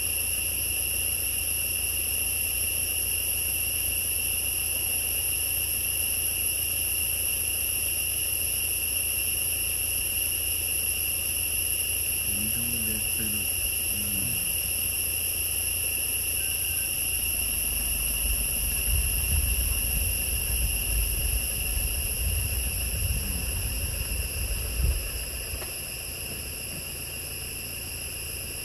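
Forest insects keep up a steady, high-pitched drone on one unchanging tone. Under it runs a low rumble that grows louder and uneven for several seconds about two-thirds in and ends with a short thump.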